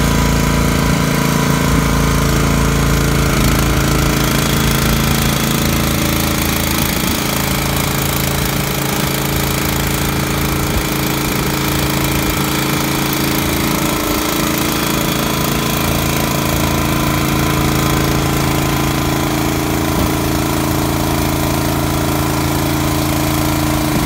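Skip-loader truck's engine running steadily, driving the hydraulics as the skip-lift arms swing loaded bulk bags onto the deck.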